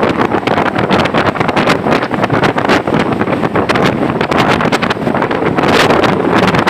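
Bus travelling in heavy rain: a steady rush of rain and road noise crossed by many sharp taps, with wind buffeting the microphone.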